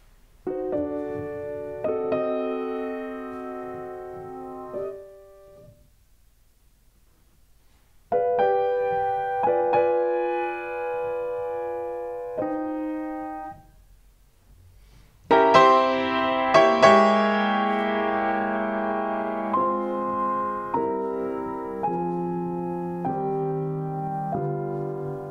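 Grand piano played solo in a classical style, with sustained chords in three phrases separated by short silences. The last phrase, starting about two-thirds of the way in, is louder and fuller, with strong, sharply struck chords.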